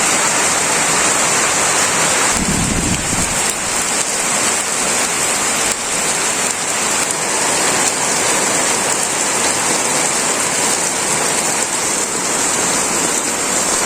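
Heavy, steady rain pouring down, with a brief low rumble about two and a half seconds in.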